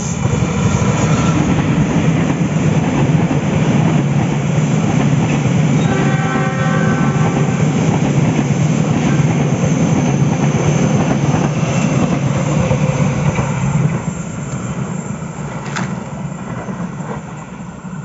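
Diesel-electric locomotive and its passenger coaches passing close by: a steady deep rumble of engine and wheels on the rails, with a brief tone about six seconds in. The rumble drops off after about fourteen seconds as the train moves away.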